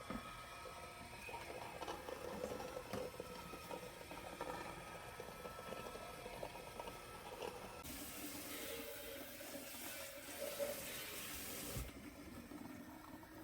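Water in a sink: splashing and handling, then a tap running steadily for about four seconds in the second half and shut off abruptly.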